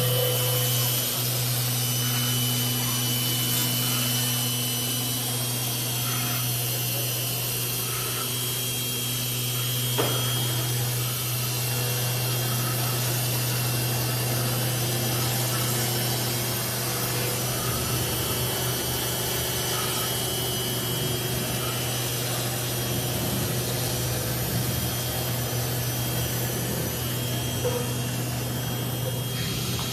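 4-axis CNC router spindle running steadily, its cutter milling a block of polystyrene foam, with a constant hum and a high whine over the rasp of the cut. One short click about a third of the way in.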